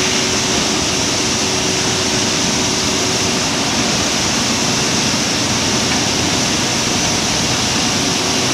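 Palm oil mill threshing station running: the rotating threshing drum and its conveyors make a loud, steady machinery noise, with a faint hum that fades out about three seconds in.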